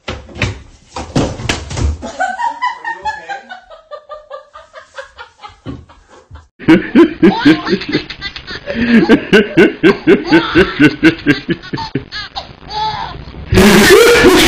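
A man laughing hard in quick repeated belly laughs, several a second, after a few thuds in the first couple of seconds. A loud noisy rush cuts in near the end.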